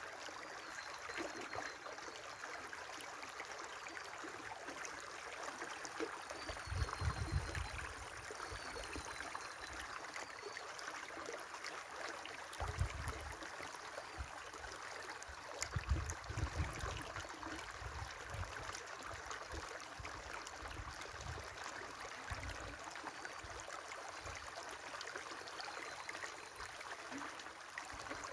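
A river flowing with a steady rush of water, faint high bird chirps now and then over it. Brief low rumbles break in about 7, 13 and 16 seconds in.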